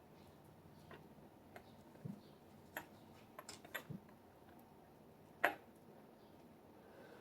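Scattered small clicks and taps of a disassembled padlock and its parts being handled, with two soft knocks around two and four seconds in and one sharper click about five and a half seconds in.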